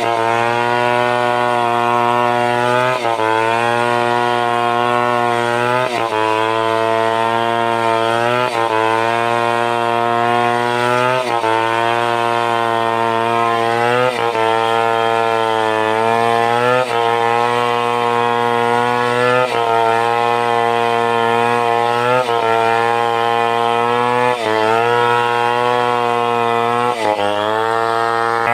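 A Stihl 070 two-stroke chainsaw runs hard under load while cutting timber. Its pitch dips sharply about every two and a half seconds and climbs back as it works through the wood.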